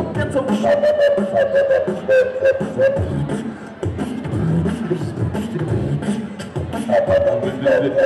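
Two beatboxers performing through microphones and a PA: fast vocal-percussion clicks and hits throughout, with a held, wavering vocal tone over the beat from about half a second to three seconds in and again near the end.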